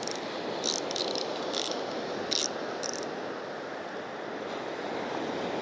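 Fishing reel ratcheting in short, irregular bursts of clicks as line is worked on it, over a steady hiss.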